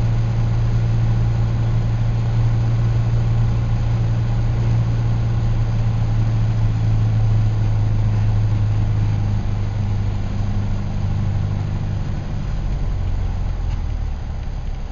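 An engine running steadily with a low hum, settling slightly lower in pitch and level about two-thirds of the way through.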